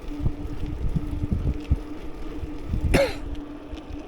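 Wind buffeting the microphone while riding, over a steady hum, with a brief cough-like vocal sound about three seconds in.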